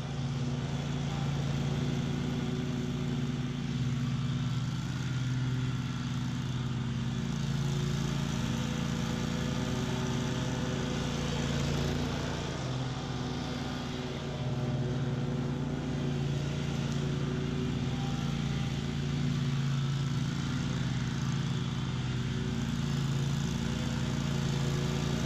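Bob-Cat QuickCat 36-inch stand-on commercial mower running steadily at cutting speed, its engine drone joined by the blades cutting through tall, thick weeds.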